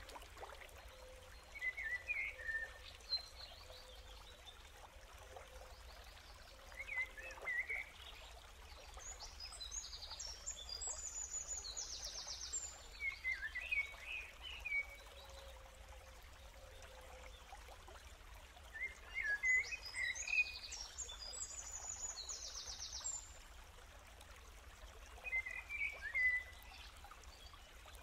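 Outdoor nature ambience: short bird chirps come every five or six seconds, with higher, rapid trills twice, over a steady faint hiss.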